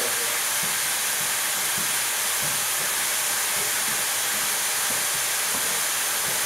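Steam locomotive letting off steam: a steady, even hiss that holds at one level throughout.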